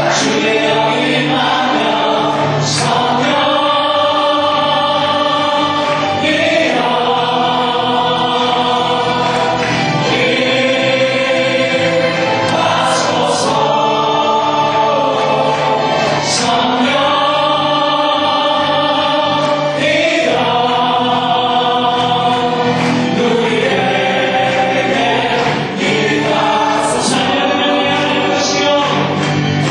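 Church praise team singing a worship song together through microphones, in long held phrases.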